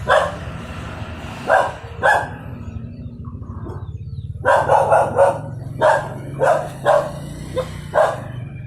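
A dog barking in short, sharp barks: a few spaced barks, then a quicker run of about eight barks in the second half, over a steady low hum.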